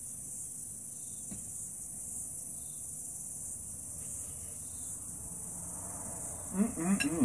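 Steady high-pitched chirring of an insect chorus, with a faint click or two. Near the end a man's voice sounds briefly, a short wordless vocal sound as he tastes his food.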